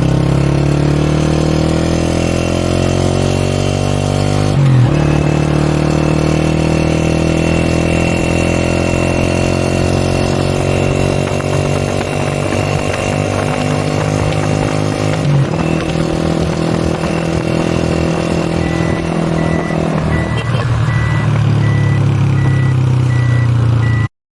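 United 125 motorcycle's single-cylinder four-stroke engine running loud through its stock silencer. Its pitch climbs for the first few seconds, drops sharply about five seconds in and again about fifteen seconds in, then settles steady. A regular high beeping joins near the end.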